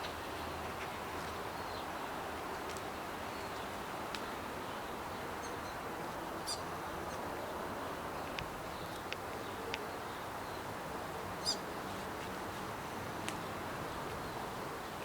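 New Zealand fantail giving scattered short, high-pitched chips, a few single ticks and two brief trilled calls, over a steady background hiss.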